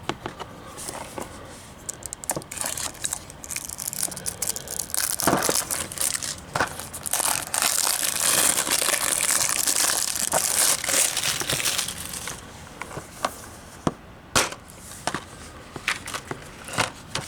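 Plastic shrink-wrap being torn and peeled off a Blu-ray case: crinkling and crackling with sharp clicks and taps, busiest and loudest from about seven to twelve seconds in.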